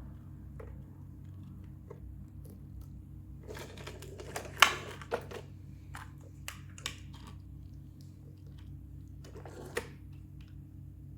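Scattered clicks, taps and rustles from hands handling a die-cast toy car and its packaging, loudest in a cluster about four and a half seconds in, over a steady low hum.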